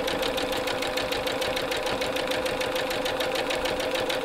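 Electric sewing machine running at a steady speed, sewing a straight stitch: a fast, even ticking of the needle mechanism over a steady motor hum.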